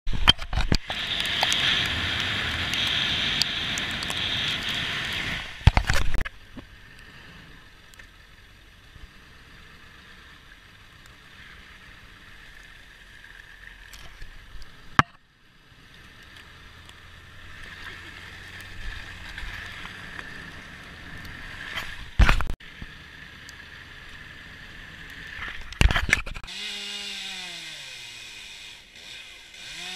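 A vehicle driving a snowy road, heard from inside: steady road and tyre noise, loudest over the first few seconds, broken by several abrupt edits. Near the end, a chainsaw whose engine pitch falls as it winds down.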